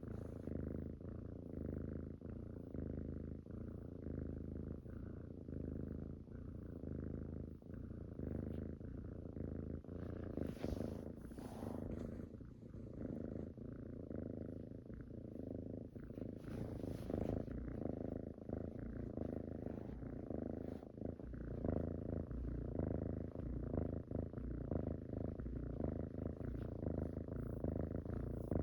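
A cat purring steadily and rhythmically, close to the microphone. There are a couple of brief rustles about ten seconds and seventeen seconds in.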